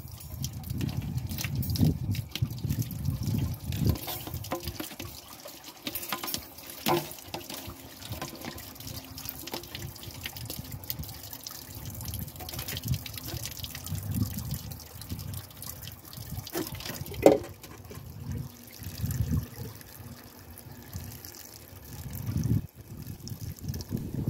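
Water running from an outdoor garden tap and splashing into a sink as a plastic basket is rinsed under it, then pouring into an enamel pot. A few sharp knocks from the basket and pot, the loudest about 17 seconds in.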